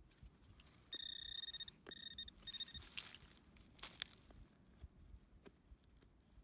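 Garrett handheld pinpointer beeping down in a dug hole: one long high beep about a second in, then two shorter ones, the alert that it has found metal in the soil. A few light knocks follow.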